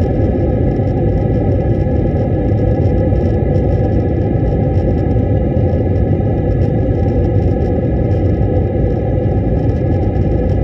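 Jet airliner cabin noise on approach, heard from a window seat beside the wing-mounted turbofan engine: a steady low rumble of engine and airflow with a faint steady whine above it.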